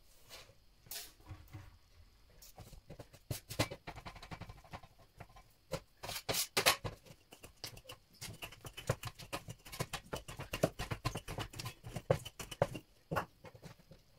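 Wooden rolling pin worked back and forth over a piece of bread dough on a stainless-steel worktop, giving a long run of quick, irregular clicks and knocks that starts a couple of seconds in and stops just before the end.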